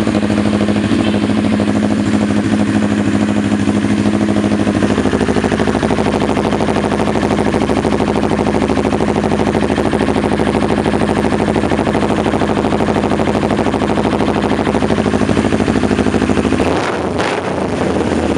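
CFMoto 400NK parallel-twin motorcycle engine idling steadily through an opened slip-on exhaust. Near the end the low rumble drops away.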